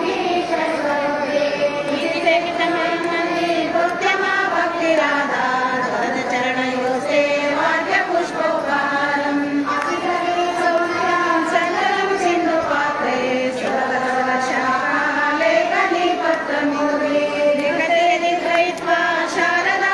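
A group of voices singing a slow devotional chant together, with long held notes that glide up and down.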